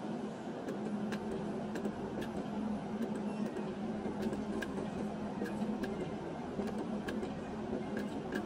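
Video slot machine running rapid spins: a steady low hum with short sharp clicks about once a second as spins start and the reels stop.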